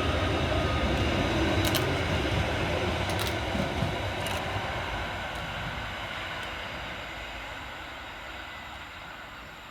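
Merseyrail Class 777 electric multiple unit pulling away from the platform. Its running noise fades steadily as it leaves, with a couple of sharp clicks about two and three seconds in.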